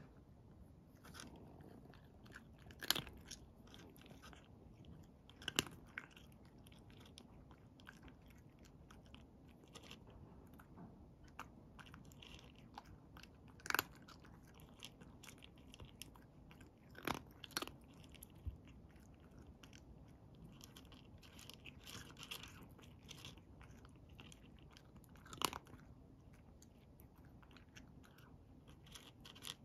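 A cat eating dry kibble: faint chewing with a handful of sharp, louder crunches spaced several seconds apart.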